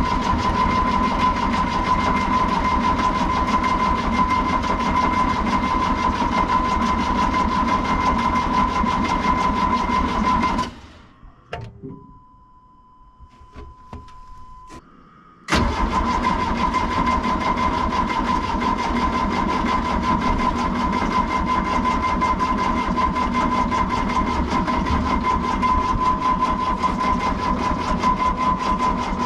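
Diesel excavator engine cranking on its starter without catching, in two long cranks with a short pause and a few clicks between them, about eleven seconds in. A steady high warning tone sounds throughout, faint during the pause. It is cranking without firing because the fuel system has lost prime from air leaking in.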